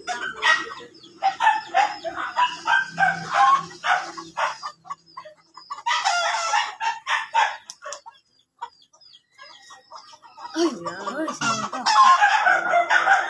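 Chickens clucking and a rooster crowing, with a quiet gap in the middle and the loudest calls near the end.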